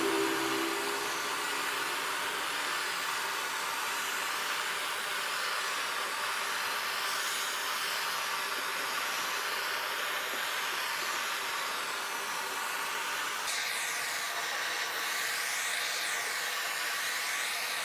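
Butane canister torch burning with a steady hiss of flame as it scorches pallet-wood slats to a charred finish. The tone of the hiss changes about three-quarters of the way through.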